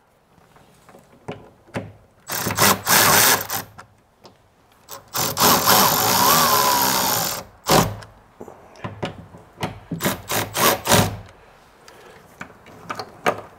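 Cordless power driver running bolts into a car door tweeter mount. There are two runs of a second or two each, the second with a faint motor whine, then several short bursts and clicks near the end.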